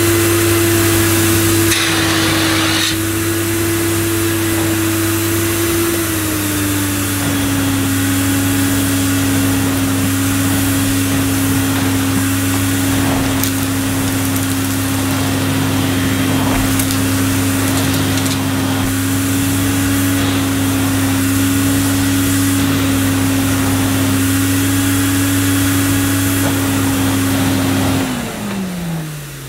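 1987 Electrolux Elite Super Electronic cylinder vacuum cleaner running while its nozzle is pushed over thick plush-pile carpet, a steady motor hum with light scraping from the nozzle. Its pitch drops slightly about six seconds in and holds. Near the end it is switched off and the motor winds down, falling in pitch.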